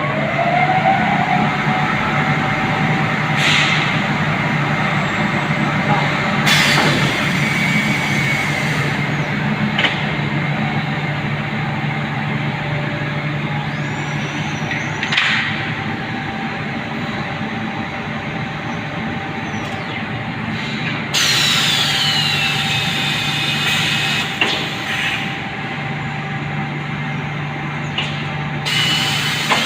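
CNC glass cutting machine running: a steady low hum with motor whines that rise and fall as the axes move, and short hissing bursts every few seconds.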